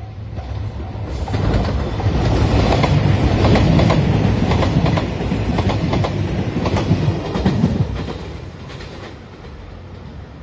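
JR Shikoku 2700 series diesel express train passing close by, its wheels clattering over the rail joints as it rushes past. The noise builds about a second in, stays loud through the middle and fades away near the end. At the very start a level-crossing warning bell rings with a steady repeating ding before the train drowns it out.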